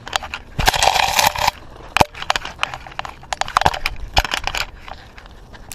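Knocking, clicking and rustling from a GoPro strapped to a small dog as the dog moves, with a loud crunching rustle about a second in and more knocks after.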